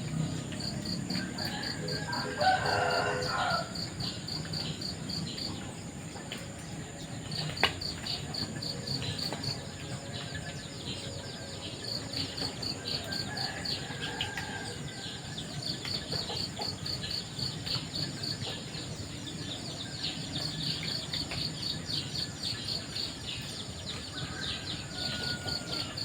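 Outdoor morning ambience: insects chirping in rapid pulsing trains throughout, with a rooster crowing once about two seconds in. A single sharp click comes near the end of the first third.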